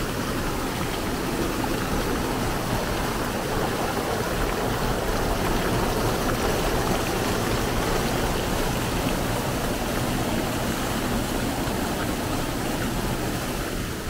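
Mountain stream rushing steadily between boulders, pouring over a short drop into a pool, a little quieter near the end.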